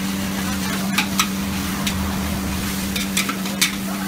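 Metal ladle and spatula scraping and clanking against a large wok as noodles are stir-fried, with a few sharp clanks over frying sizzle and a steady low hum.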